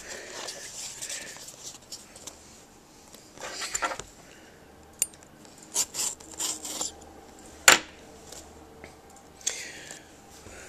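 A cardboard phone box being handled and opened by hand: rustling and rubbing, then scattered sharp clicks and taps, the sharpest about three-quarters of the way through.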